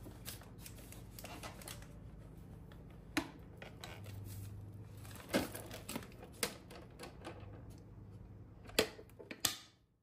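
Plastic clicks and knocks from handling a cordless stick vacuum's clear dust bin as its latch and lid are worked and the bin is fitted to the vacuum body. The clicks come irregularly, with a few sharper knocks standing out.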